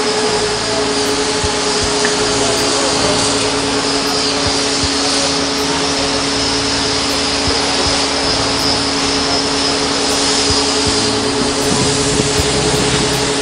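Construction-site machinery running steadily: a continuous mechanical drone with a low two-tone hum and a faint high whine.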